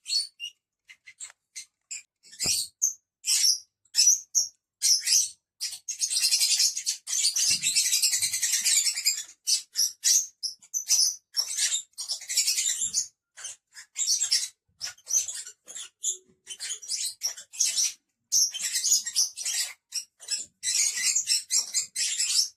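A group of lovebirds chattering with rapid, high-pitched chirps, thickening into near-continuous chatter about six seconds in and again near the end.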